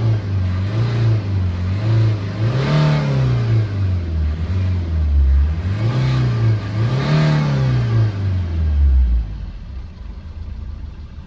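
Maruti Suzuki Ertiga engine, freshly rebuilt after a seized crankshaft, revved in repeated blips that rise and fall in pitch, then settling back to a quieter idle about nine seconds in.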